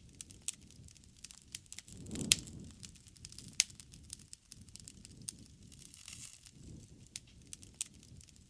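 Wood fire burning, crackling irregularly with sharp pops, the loudest about two seconds in. Under the pops a low soft rush of flame swells and fades a couple of times.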